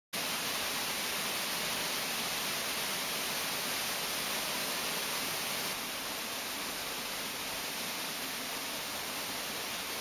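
Waterfall, a steady, even rushing hiss of falling water that starts abruptly and drops slightly in level about six seconds in.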